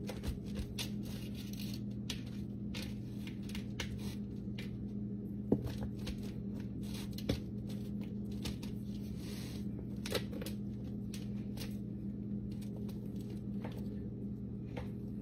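A knife cutting through the crumbly baked crust of an apple pie pizza on a metal pizza pan: a steady run of small crunches and scrapes, with a few sharper clicks where the blade meets the pan. A steady low hum lies underneath.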